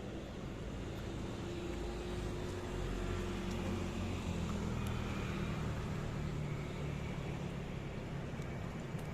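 A motor vehicle's engine running, a low rumble that swells about two seconds in and slowly eases off again, as it passes nearby.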